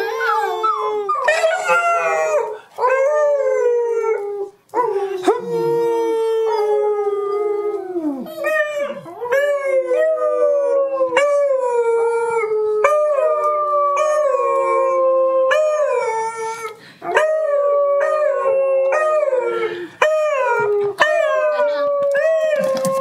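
Beagles howling together: a run of long howls, often two at once, each held on a note and then sliding down in pitch, new ones starting every second or two.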